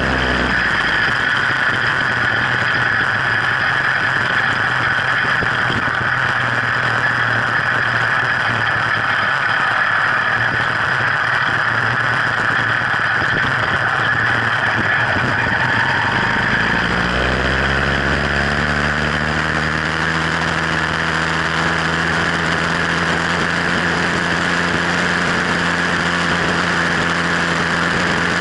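Sky Hawk 66cc two-stroke motorized-bicycle engine running as the bike is ridden. About seventeen seconds in, its low note rises and then holds steady.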